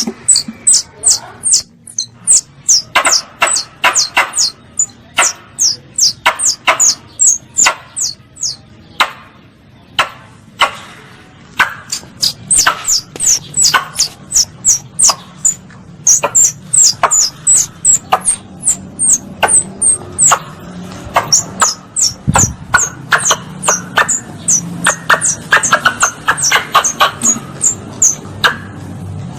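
Squirrel (tupai) calls played as a hunting lure: a rapid, continuous series of short, sharp, high-pitched chirps, each dropping in pitch, about three to four a second with a few brief pauses.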